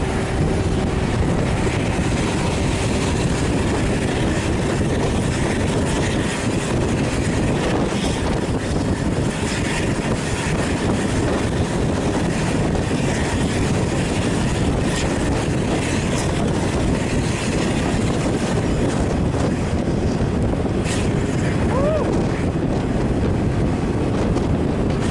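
Steady road-traffic noise heard from a moving vehicle on a highway: a continuous engine and tyre rumble with no sharp events.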